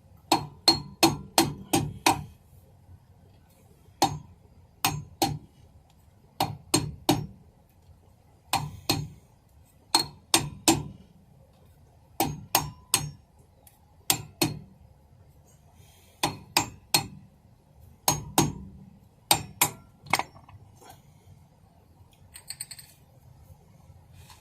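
Hammer striking metal in quick clusters of two to five blows, a cluster every second or two, each blow with a short metallic ring.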